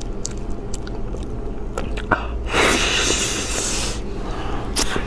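Close-up eating sounds of people biting into and chewing a soft custard-filled pastry: scattered small wet clicks and smacks, with a louder, hiss-like noise lasting about a second and a half near the middle.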